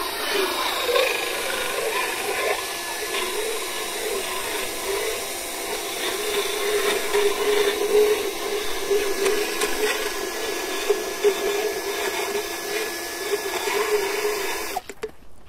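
Motorized dental float grinding down a horse's uneven teeth: a steady motor whine with a rough, uneven grinding texture, stopping suddenly near the end.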